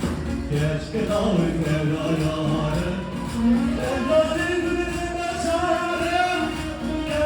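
Live wedding music: a male singer over a band, the melody held in long wavering notes over a steady low accompaniment.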